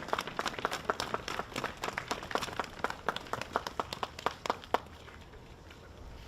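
Audience applauding, the clapping thinning out and stopping a little under five seconds in.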